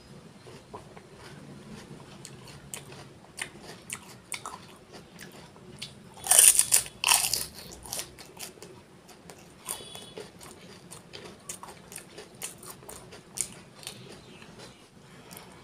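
Crisp fried pani puri shells crunching as they are bitten and chewed close to the microphone. A loud burst of crunching comes about six seconds in, with scattered smaller crackles and clicks of chewing around it.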